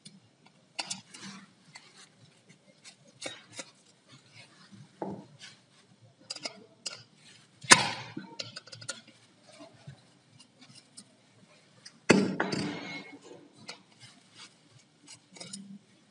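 Faint handling noise from a soldering station's circuit board, wires and plastic housing being moved about: scattered small clicks and taps, a sharper click about eight seconds in, and a louder clatter a little after twelve seconds.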